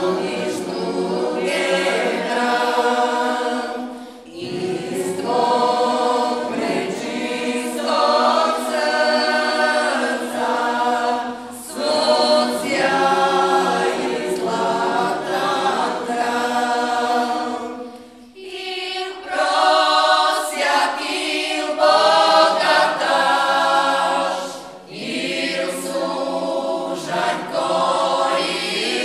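Mixed vocal group of men and women singing a Marian hymn unaccompanied in the local folk style, in phrases of about six to seven seconds with short breaks between them.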